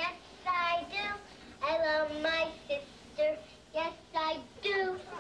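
A little girl singing a simple tune in a high voice, 'I love my sister, yes I do,' in short phrases with brief pauses between them.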